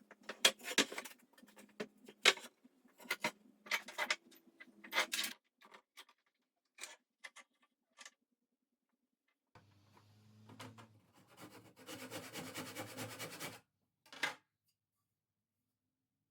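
Workshop handling sounds: a quick run of sharp knocks and scrapes, like wooden pieces and tools being set down and moved. Then a small machine runs with a low hum for about four seconds, stopping before one last knock.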